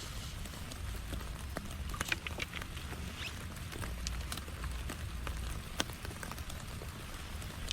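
Steady rain falling, with many scattered sharp ticks of individual drops landing close by and a low rumble underneath.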